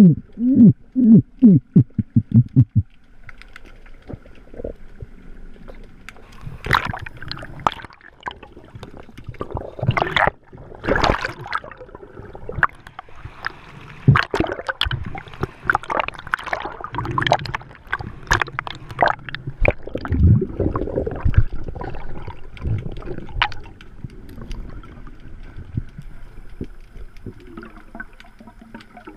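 Water gurgling and sloshing heard from underwater, with irregular loud splashes and bubble bursts through the middle. A quick run of low pulsing gurgles fades out in the first few seconds.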